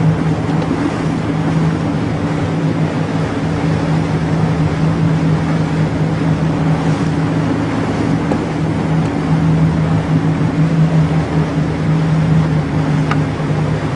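Motorboat engine running with a steady low hum, over a constant rush of water and wind.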